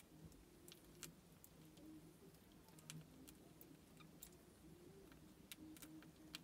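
Near silence with faint, irregular little clicks and smacks, typical of newborn kittens suckling.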